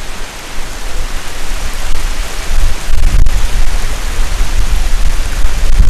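Wind buffeting the microphone: a loud rushing hiss with rumbling low gusts that swell and ease.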